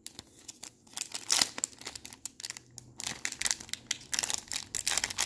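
Foil wrapper of a Topps Chrome trading-card pack crinkling and tearing as it is ripped open by hand: a dense, uneven run of sharp crackles that starts suddenly and is loudest in the second half.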